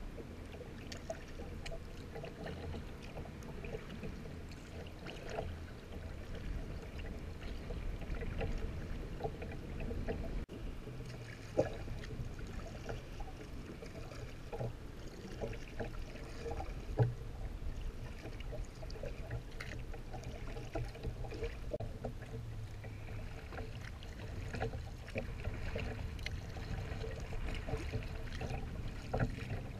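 Kayak being paddled through choppy water: water lapping and splashing at the hull, with scattered small splashes and knocks from the paddle and a steady low wind rumble on the action camera's microphone. The sound drops out abruptly for a moment about ten seconds in.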